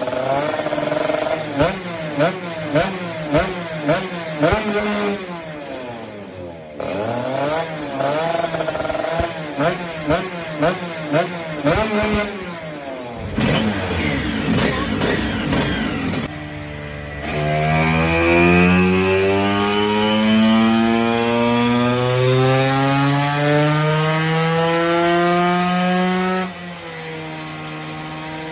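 Vespa two-stroke engine with a Quattrini M144 144cc kit, revved in a string of quick throttle blips, then held in one long, steady climb in revs lasting about nine seconds before dropping suddenly back to idle, as in a full-throttle dyno pull.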